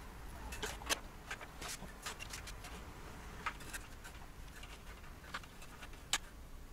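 Scattered sharp clicks and light knocks of hands handling parts and connectors inside an open desktop computer case, two of them louder, about a second in and near the end.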